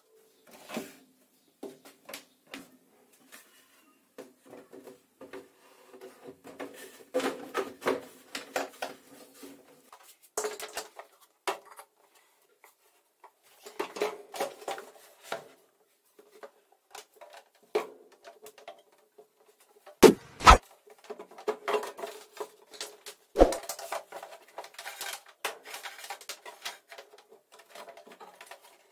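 Hands handling parts: scattered clicks, taps and rattles, with two sharp knocks close together about two-thirds of the way through and another a few seconds later. A faint steady hum runs underneath.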